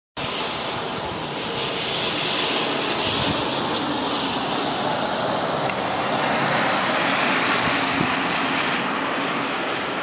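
Steady hiss of rain falling in a rain storm.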